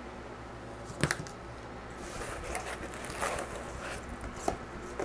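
Handling noise from unpacking kit parts out of a cardboard box with foam packing: a sharp knock about a second in as a part is set down, then rustling and crinkling of packaging, and another light knock near the end.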